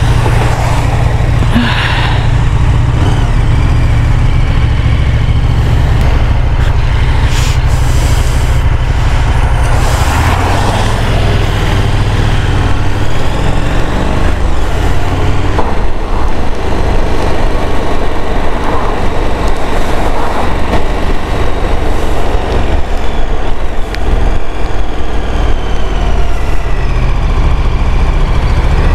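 Motorcycle engine running as the bike is ridden, with a steady low rumble of wind noise over the bike-mounted camera's microphone.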